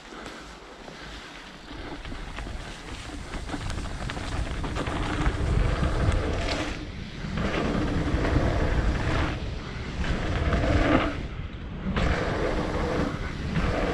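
Wind rushing over a helmet-mounted camera's microphone, mixed with mountain bike tyres rolling over dirt, on a fast trail descent. It gets louder over the first few seconds as speed builds, with two brief drops.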